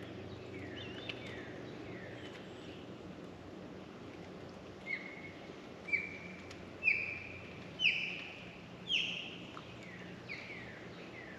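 Songbird singing: a few slurred falling whistles, then about halfway through a run of five clear notes about a second apart, each louder than the last, followed by more falling notes. A faint steady low hum runs underneath.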